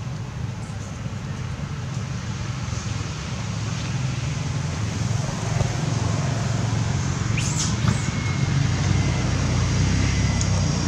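A motor vehicle's engine running steadily, growing gradually louder, with a brief high squeak about seven and a half seconds in.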